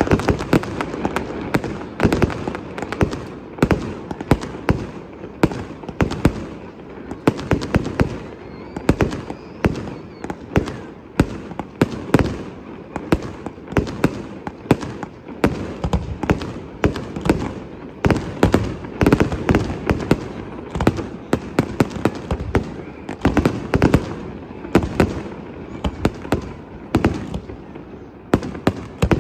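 Aerial fireworks display: a dense, continuous barrage of shell bursts and sharp reports, many close together, over a constant rumble and crackle.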